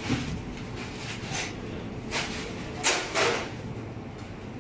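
Grocery shop background noise with a few brief rustles or knocks, the loudest two close together about three seconds in.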